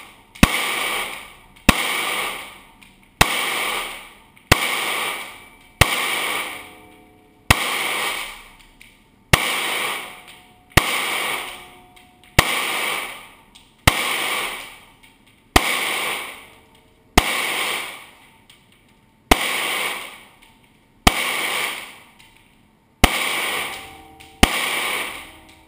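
Semi-automatic pistol fired shot after shot, about sixteen shots at a steady pace of one every second and a half or so. Each shot is a sharp crack followed by about a second of ringing echo off the walls of the indoor range.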